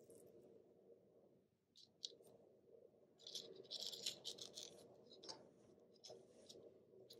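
Utility knife blade shaving the graphite tip of a Faber-Castell 9000 HB pencil to a point. It makes a series of short, dry scraping strokes that start about two seconds in and come thickest in the middle, over a faint steady hum.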